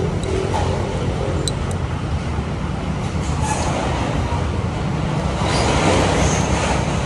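Steady road traffic noise with a low rumble, growing louder for a moment about six seconds in as a vehicle passes.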